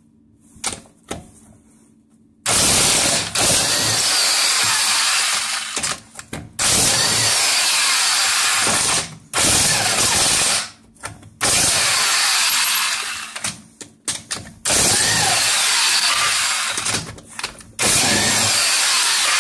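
Impact wrench hammering in repeated bursts of one to three seconds, about seven in all, loosening a car wheel's lug nuts. A few light clicks come first, and the wrench starts about two and a half seconds in.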